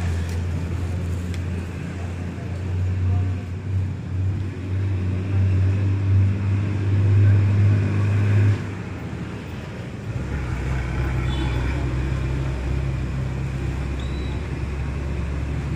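Steady low engine drone of road traffic close by. The hum swells, cuts off sharply about eight and a half seconds in, and a deeper drone takes over about a second and a half later.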